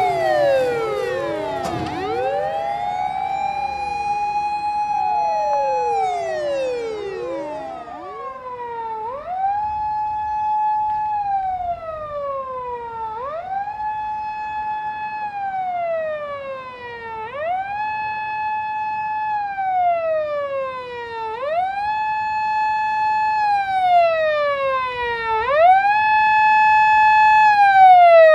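Emergency-vehicle sirens: in the first few seconds several overlap, their pitches sweeping down. Then one siren wails in a steady cycle of about four seconds, rising, holding high, then falling, and grows louder near the end.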